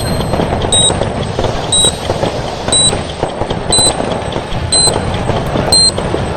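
Fireworks sound effect, dense popping and crackling bangs, under a short high electronic beep once a second that marks each second of the countdown timer; six beeps, creeping slightly higher in pitch.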